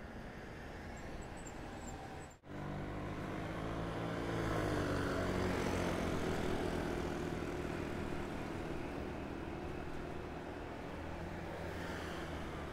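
City traffic from a bicycle: after a brief dropout about two seconds in, a motor vehicle's engine hum builds, is loudest a few seconds later, and slowly eases off as it passes.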